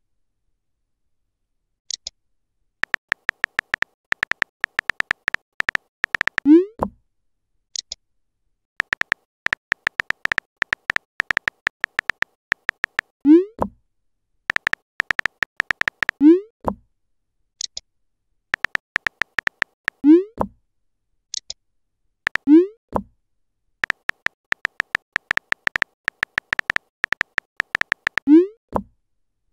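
Phone-keyboard typing sounds from a texting-story app: rapid runs of taps, each run ending in a short rising pop as the message is sent. Brief high chirps come between the runs as the other side's messages arrive.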